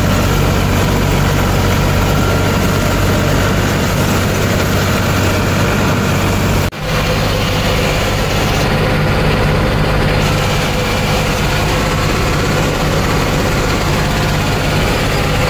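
Heavy diesel engine of a tractor-mounted paddy harvester running steadily, with a brief sudden drop-out about seven seconds in.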